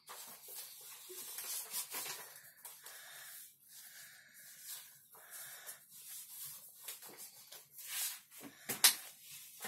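Brush pen tip scratching and squeaking in short strokes across a dried acrylic-painted page, with a sharp click a little before the end.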